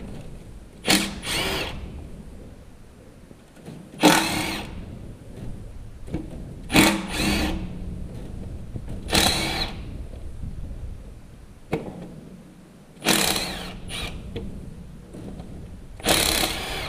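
A handheld power tool spinning bolts out in short bursts, about eight pulls on the trigger with pauses between, as the bolts come off during an engine teardown.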